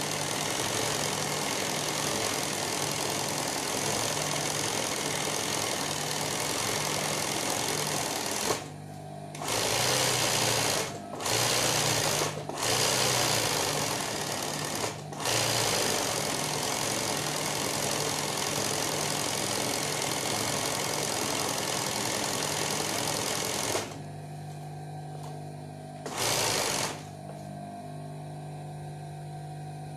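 Industrial sewing machine stitching machine embroidery in fast runs, with a few short pauses. About three quarters of the way through it stops, apart from one short burst; after that only the steady hum of its motor is left.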